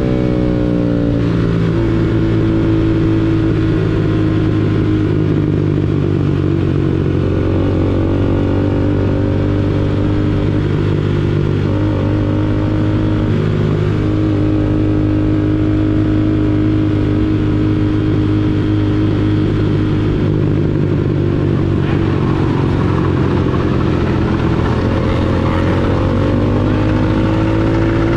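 Motorcycle engine running at a steady cruising speed, its note held level, then rising as it accelerates near the end.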